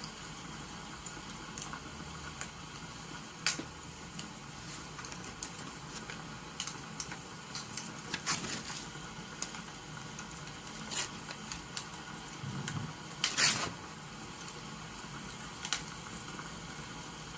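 Crackling wood fire over a steady hiss of rain, with scattered small pops and clicks. About thirteen seconds in there is one louder, brief rustling noise.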